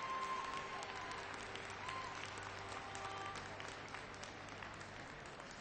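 Large audience applauding, many hands clapping at once; the applause slowly dies down.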